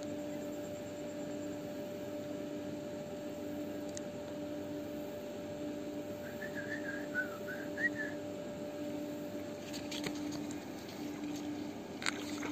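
Steady low background hum with a faint pulsing drone, a brief high chirping about six seconds in, and a few clicks and rustles near the end as the angler stands up to strike a fish on his rod.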